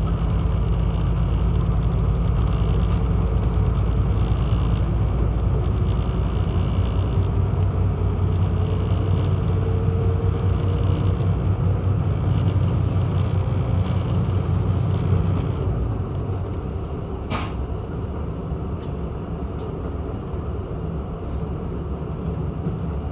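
KiHa 85 diesel railcar's engines running under power as the train pulls away and gathers speed: a steady low drone with a faint rising whine in the middle. The drone eases off about two-thirds of the way through, and a single sharp click follows a little later.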